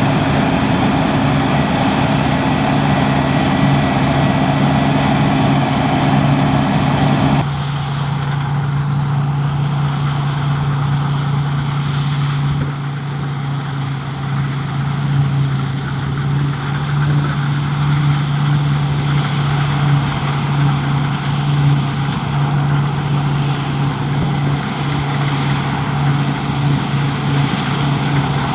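Heavy farm harvest machinery running steadily, a strong low engine hum under a rushing mechanical noise. About a quarter of the way in the sound changes abruptly and much of the higher rushing noise drops away, while the low hum carries on.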